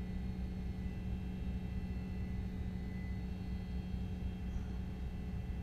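Steady low engine drone with a constant hum and rumble.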